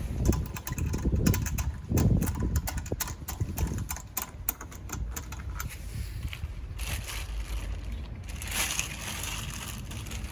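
Wind buffeting the microphone, with a run of quick small clicks and knocks in the first half.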